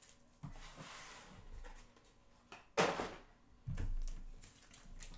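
Trading-card packaging and holders handled on a tabletop: a soft rustle, then a sharp tap just under three seconds in and a duller knock about a second later.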